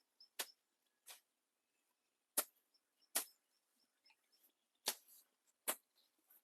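Sharp knocks in three pairs, each pair about three-quarters of a second apart, with faint high bird chirps in between.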